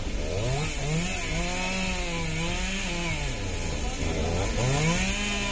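A small engine revs up, holds at high revs for a couple of seconds and drops back, then revs up and falls again near the end. Under it runs a steady rush of water from a rocky mountain stream.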